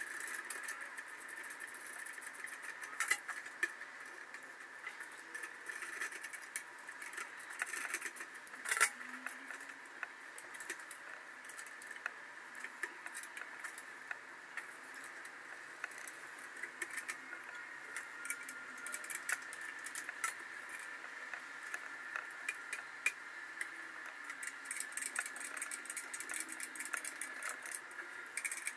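Small metallic clinks and ticks of bolts and a hand tool as steel brackets are fitted to a radiator and its electric cooling fan, with one sharper knock about nine seconds in and a quick run of clicks near the end. A faint steady high hum lies behind it.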